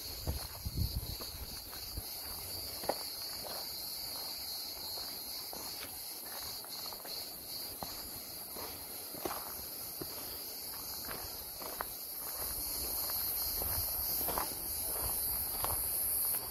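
A steady, high-pitched insect chorus that grows louder over the last few seconds, with irregular footsteps along the trail.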